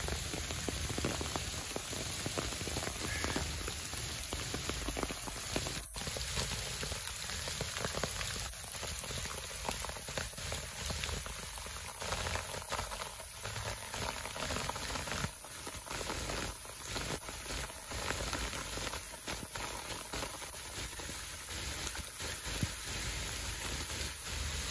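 Steady rain falling on trees, shrubs and wet ground: a constant hiss with many separate drop strikes.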